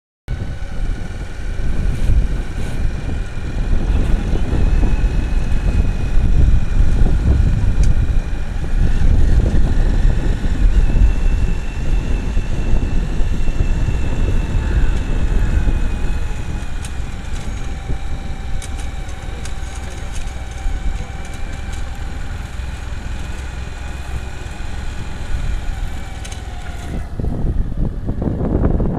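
Motorbike engine running steadily while riding along a road, with wind buffeting the microphone; a faint whine drifts slowly in pitch. Shortly before the end the higher sounds drop away and the wind rumble takes over.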